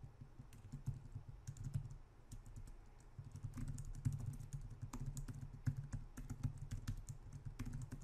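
Typing on a computer keyboard: quick, irregular keystrokes in runs, with a short pause about two seconds in.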